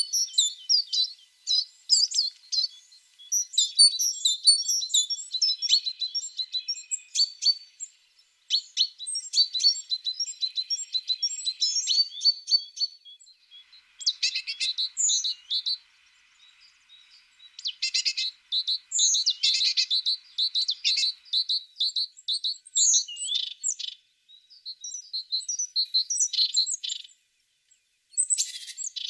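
Tits singing and chirping: bouts of quick, high chirps and trills, with short pauses about 8, 16 and 28 seconds in.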